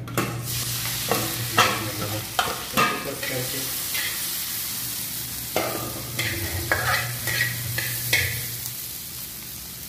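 Potato pieces sizzling in hot oil in a shallow steel pan, with a metal spatula scraping and knocking against the pan as they are stirred, about ten strokes in all.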